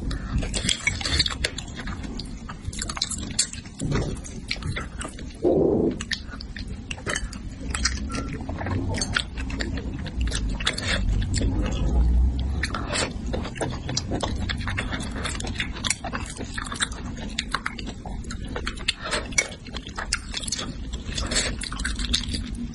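Close-up mouth sounds of eating braised fish: wet chewing, lip smacks and slurps, a dense run of short clicks.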